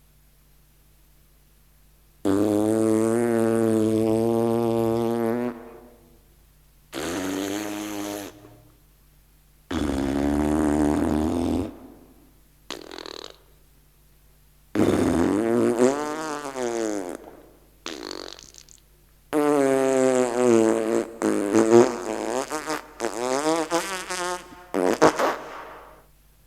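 A run of recorded fart sound effects: about seven pitched, wavering blasts of different lengths with short gaps between them. The first is long and fairly steady, about three seconds, and a quick string of shorter ones comes near the end.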